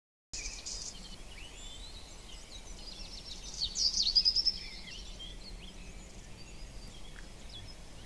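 Wild birds chirping and calling over a faint outdoor background, busiest about four seconds in. The sound starts after a brief moment of dead silence.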